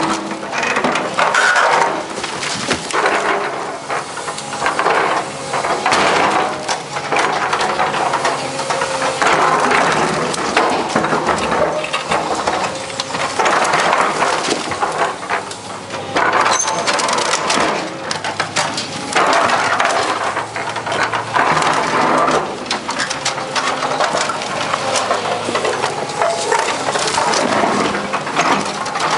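Excavator bucket ripping up reinforced concrete slabs: concrete cracking, grinding and scraping, with broken chunks clattering down. The excavator's diesel engine runs steadily underneath.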